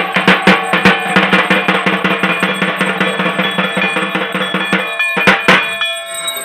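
Dhak drums beaten in a fast, dense roll with a steady high metallic ringing over them. The drumming stops about five seconds in, with two last strokes after it.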